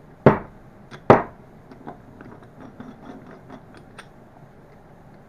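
Two sharp metal knocks about a second apart, each ringing briefly, then light clicks and taps as the small steel parts of a Jacobs drill chuck are handled and fitted during reassembly.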